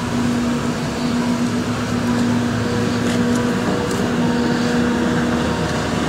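A steady low droning hum holding one pitch, with fainter higher tones over a rough noisy bed.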